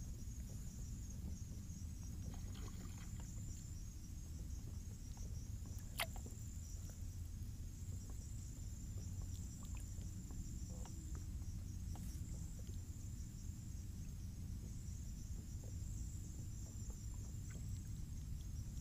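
Night insects trilling steadily, high-pitched with a fast pulse, over a steady low rumble. A single sharp click about six seconds in.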